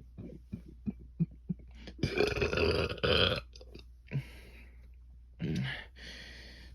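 A person burping on purpose: a run of short clicks at first, then one long, loud, gurgly belch about two seconds in, followed by two shorter burps.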